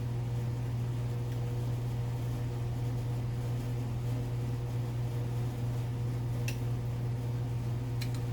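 A steady low mechanical hum, like a fan or motor running, with two faint light ticks of metal being handled late on.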